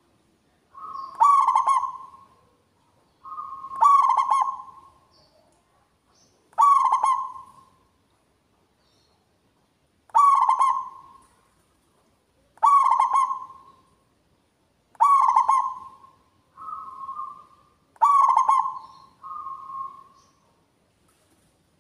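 Zebra dove (perkutut) singing its rolling coo: about seven loud, rapidly pulsed phrases, each about a second long and two to three seconds apart, some with a softer short note before or after.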